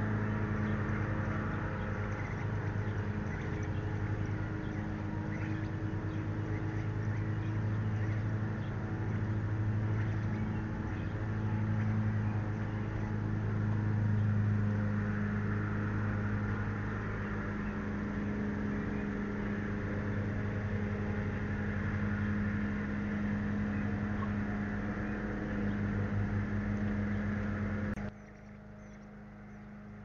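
A steady low hum with a fainter overtone over a constant hiss. It drops sharply and becomes much quieter about two seconds before the end.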